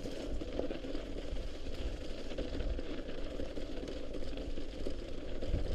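Mountain bike rolling along a slushy gravel trail: a steady crackle of tyres through slush and gravel with drivetrain rattle, over a low rumble of wind on the microphone.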